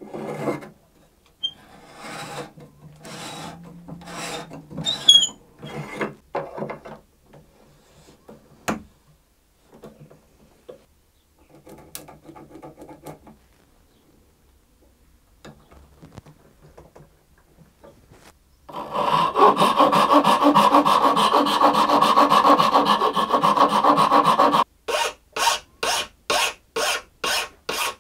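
A hand reamer scraping round in a cello's peg holes in short strokes, then, after some quieter seconds, about six seconds of loud continuous rasping that stops suddenly, followed by quick separate file strokes, two or three a second, on the end of a new ebony peg.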